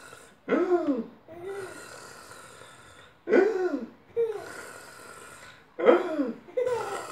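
Baby girl laughing in three bursts a little under three seconds apart, each a squeal that rises and falls in pitch with a shorter one after it, as she is lifted up and down in play.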